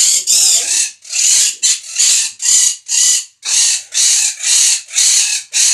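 Parrot screeching over and over, harsh loud squawks about three a second, demanding attention at feeding time.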